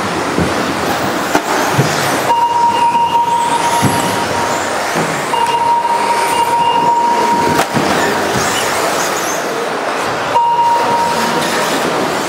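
Electric radio-controlled model cars racing on a carpet track: a continuous whirring noise with a few sharp knocks, and a steady high tone that comes and goes three or four times, each time for a second or two.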